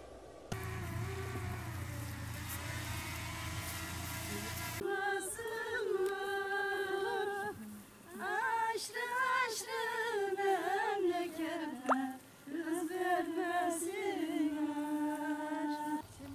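A woman's voice singing a slow, unaccompanied melody. For the first few seconds a tractor engine runs under it, then cuts off.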